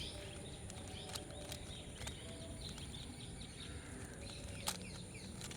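Faint birds chirping in the background, with a few sharp clicks of a 3×3 Rubik's cube being handled and turned, the loudest about three-quarters of the way through.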